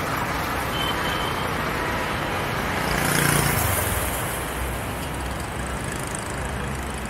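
Street traffic: a steady wash of road noise, with a vehicle passing close about three seconds in, its rumble and hiss swelling and then fading.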